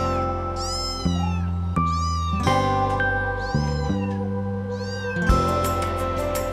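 A kitten meowing a few times in high cries that rise and fall in pitch, over background music with held notes and a bass line; near the end a fast ticking beat joins the music.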